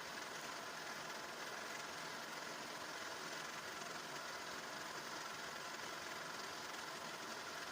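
Metal lathe running steadily while machining a steel holder toward a flat, rectangular shape: an even machining noise with no separate knocks.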